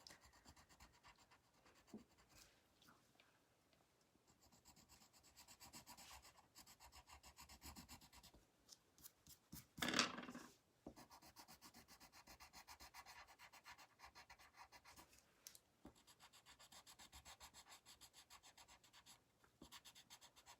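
Coloured pencil shading on paper: faint, rapid back-and-forth rubbing strokes as a butterfly's wing is coloured in, with a brief louder rustle about ten seconds in.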